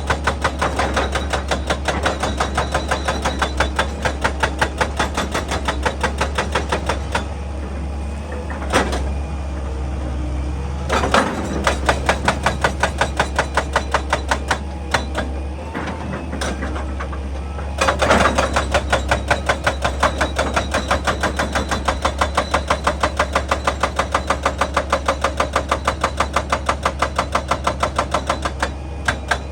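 Excavator-mounted hydraulic breaker hammering rock in rapid, evenly spaced blows, several a second, over the steady hum of the excavator's engine. The hammering stops twice, about a quarter and about half of the way through, and resumes each time.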